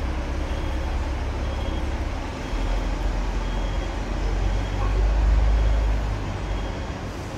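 Hong Kong tram running, a steady low rumble that swells about five seconds in and eases off again.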